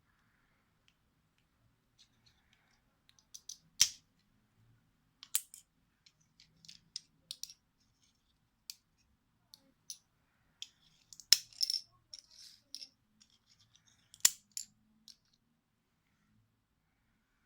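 Plastic Lego pieces of a Lego fidget spinner clicking and rattling as they are handled: scattered sharp clicks with short rattles, the loudest snaps about four, eleven and fourteen seconds in.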